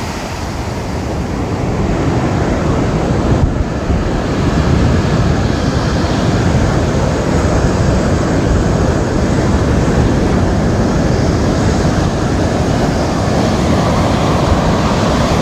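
Caribbean surf breaking on the shore, a steady loud rush of waves, with wind rumbling on the microphone.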